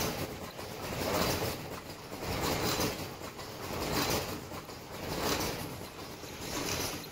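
Automatic flat mask making machine running, its mechanism cycling in a regular swell of mechanical noise about every 1.3 seconds.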